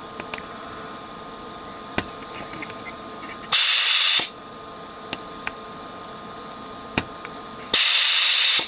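Desoldering gun's vacuum pump sucking molten solder off circuit-board joints: two short, loud hissing bursts about four seconds apart, with a few light clicks between.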